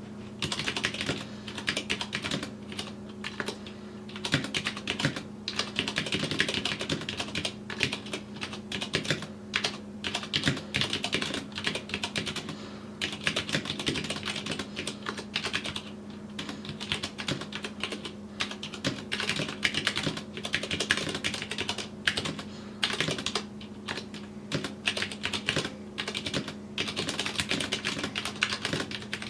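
Typing on a Vortex POK3R mechanical keyboard with Cherry MX Brown switches and PBT keycaps: rapid, continuous keystroke clacks in runs with brief pauses. A steady low hum sits underneath.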